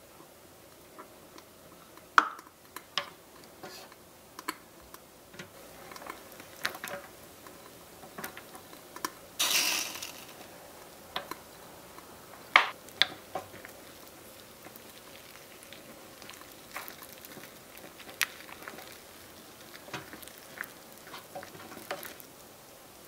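Wooden spatula stirring soup in a small aluminium pot on a miniature stove, with scattered sharp knocks and clicks of the spatula against the pot, the loudest about two seconds in and about halfway through. A short rush of noise comes just before halfway.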